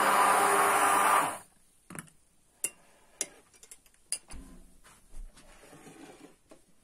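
Kitchen hand blender running steadily in a glass mug of milk, frothing it, then switched off about a second and a half in. After it, a few sharp clicks and soft knocks as a glass mug is handled and moved on a wooden table.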